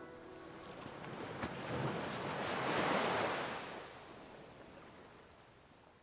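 A single rushing whoosh of noise, like a wave of surf, that swells to a peak about three seconds in and then slowly dies away.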